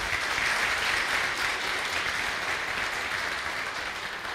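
Congregation applauding, a steady wash of clapping that fades slowly toward the end.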